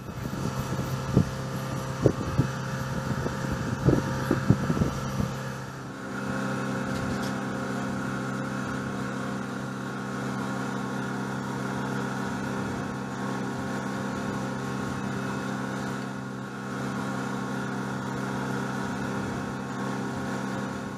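Steady machine hum with several held tones. Over the first six seconds, a handful of sharp knocks sound over it.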